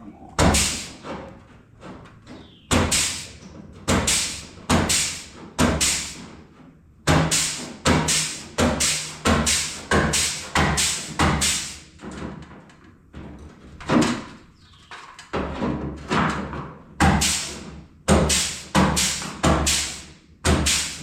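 Flange tool crimping a stepped lip along the edge of a sheet-metal wheel-arch patch panel: a sharp metallic clack roughly every half second to second, with a few short pauses as the tool is moved along.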